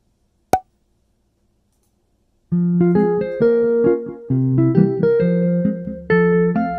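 Near silence broken by one short click about half a second in, then background keyboard music starts about two and a half seconds in, with a steady run of piano-like notes.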